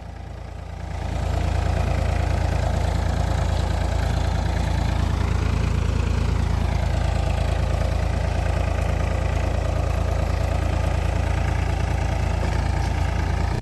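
Farm tractor engine running steadily with a deep rumble, growing louder about a second in and then holding even.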